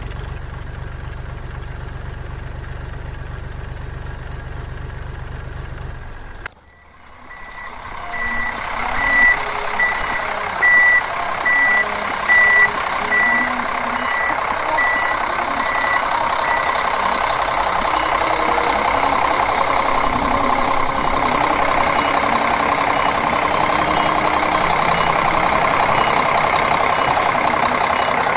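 A diesel tractor engine sound runs steadily and cuts off abruptly about six seconds in. A heavy loader's engine sound then rises, with a reversing alarm beeping steadily for about eight seconds, and the machine runs on without the beeps.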